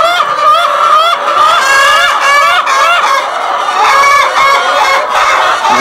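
A flock of brown laying hens calling loudly all at once: many overlapping squawks and cackles, with no pause. The owner suspects hens ready to lay are upset because another hen is in their favourite nest, but is not sure that is the cause.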